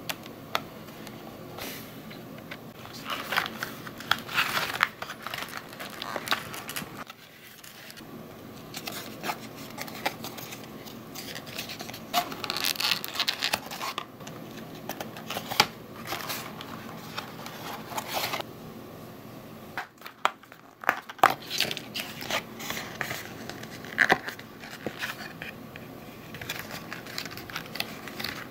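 Thin printed cardboard paper-craft pieces being handled, folded and fitted together: irregular rustling and crinkling with scattered sharp clicks and taps.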